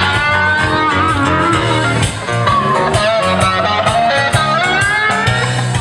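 Rock music: an electric guitar plays bending lead lines over bass and drums.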